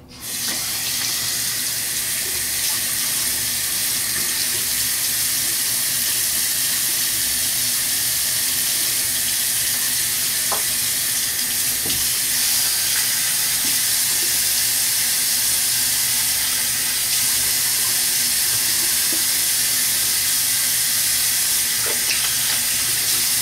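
Bathroom sink tap running cold water, a steady rushing hiss that starts suddenly and holds level while a face is rinsed.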